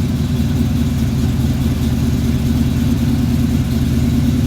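1972 Chevrolet Camaro RS engine running steadily at idle.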